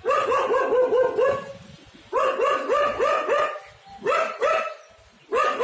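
An animal barking in quick runs of several barks, about four a second, with short pauses between the runs.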